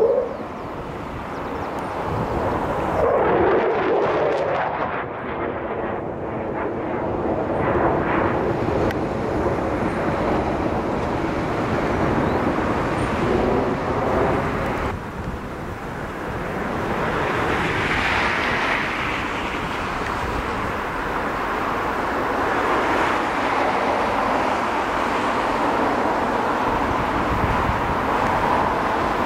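Mitsubishi F-2 fighter's single F110 turbofan running as the jet manoeuvres, a continuous roar that swells and fades with the aircraft's distance and heading. It breaks off abruptly about fifteen seconds in, then builds again as the jet comes back toward the listener.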